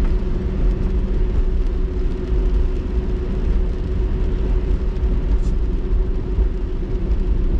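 Steady low rumble of a car driving on a wet road, heard from inside the cabin, with a constant faint hum.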